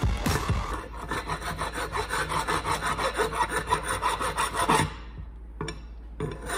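A steel tool scraping rust out of the pad slide channels of a cast-iron brake caliper bracket, in rapid back-and-forth strokes about five a second that stop just under five seconds in, then resume briefly near the end. The rust is being cleaned off so the brake pads can slide properly.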